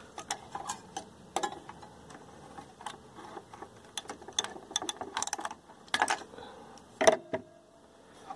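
Irregular small clicks, taps and scrapes of fingers working a desoldered IC chip loose from a TV's circuit board, with a couple of louder knocks near the end.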